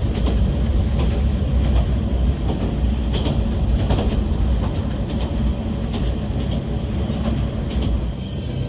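Yamagata Railway Flower Nagai Line diesel railcar running along the track: a steady low rumble with irregular sharp clicks of the wheels over rail joints, easing off slightly near the end.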